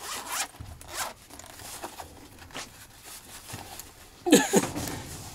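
Zipper on a small shielded fabric pouch being pulled open in several short rasps. The loudest and longest pull comes about four seconds in.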